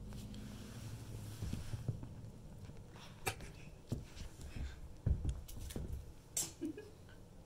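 A small Chihuahua–Italian Greyhound mix scampering and pouncing among her toys on carpet: irregular soft thumps and scuffs, the loudest about five seconds in and again near the end.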